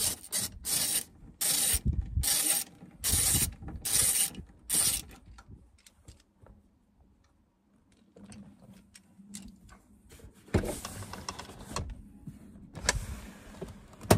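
Socket ratchet undoing the 13 mm seat-mounting bolts, a quick run of rasping ratchet strokes for about five seconds, then a pause and a few more strokes near the end.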